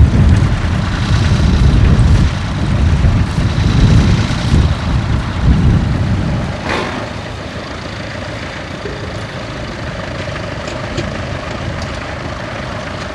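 Tractor engine running close by, a heavy low rumble for the first six seconds or so that then drops away to a quieter steady drone. A single sharp knock comes about halfway through.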